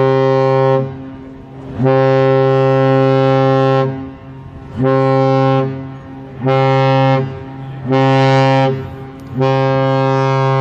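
A P&O cruise ship's horn sounds a series of deep, steady single-pitch blasts. A blast ends just after the start, then come a blast of about two seconds and three shorter blasts, and a long blast begins near the end.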